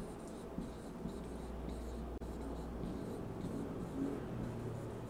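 Marker pen writing on a whiteboard: a run of short, faint strokes as words are written out.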